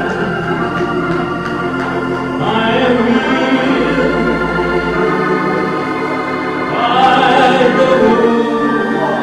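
Church organ playing held gospel chords over sustained bass notes, with some voices singing along.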